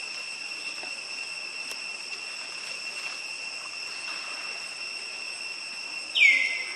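Steady high-pitched drone of insects. About six seconds in, a single loud, high call drops sharply in pitch and then holds briefly.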